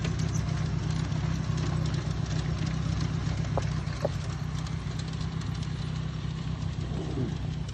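G scale model train double-headed by two Amtrak locomotives running past on outdoor track: a steady electric motor and gear hum with light clicking of the wheels over the rail.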